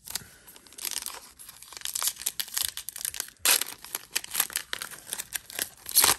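The foil wrapper of a Donruss Baseball card pack being torn open and crinkled by hand, with louder rips about halfway through and again near the end.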